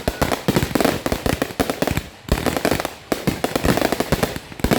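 Fireworks finale: dense, rapid volleys of aerial shell bursts and crackling, with brief lulls twice between volleys.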